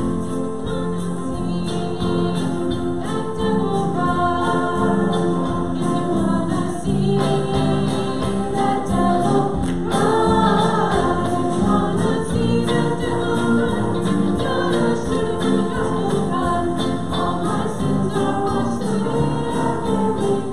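A congregation singing a hymn together with instrumental accompaniment.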